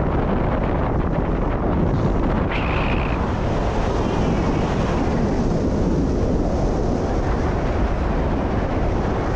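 Steady wind noise buffeting a first-person camera's microphone during a descent under an open parachute canopy.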